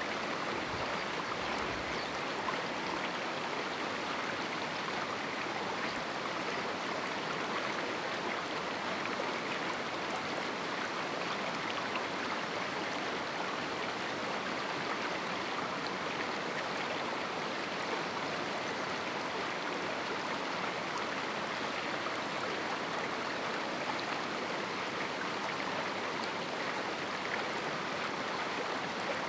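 River water rushing steadily through a small rocky canyon, an even, unbroken flow.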